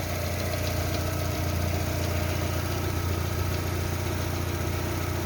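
VAZ 21129 1.6 16-valve engine of a Lada Largus idling steadily, made louder by a torn exhaust flex pipe.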